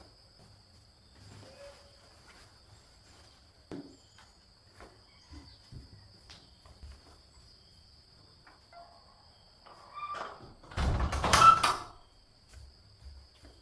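A steady high insect drone with faint scattered clicks, and near the end a loud clatter lasting about a second.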